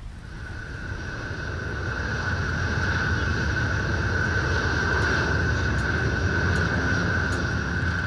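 Jet aircraft engine running: a steady high whine over a low rumble, swelling over the first couple of seconds and then holding.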